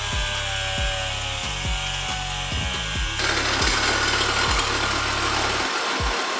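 Milwaukee grinder cutting through a plastic car bumper cover; its steady whine turns into a harsher, hissier cutting sound about three seconds in. A deep, pulsing bass beat of background music runs underneath.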